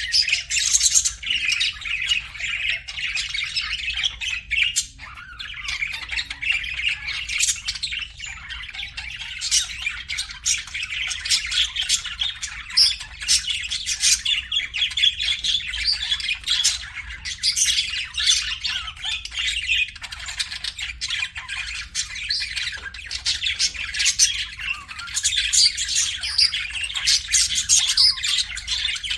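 A flock of budgerigars chirping and chattering, many short overlapping calls and squawks without a break.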